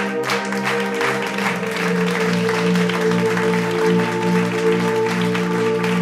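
Background music: sustained held tones over a light, regular beat.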